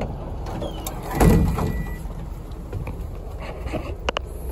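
A community bus's engine running with a steady low rumble, a short loud burst of noise about a second in, and two sharp clicks near the end.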